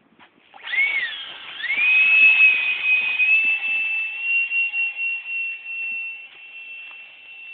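Radio-controlled model jet's motor whining at full throttle as it is hand-launched: a sudden high whine about half a second in that dips, rises and settles into a steady tone, growing fainter as the jet flies away.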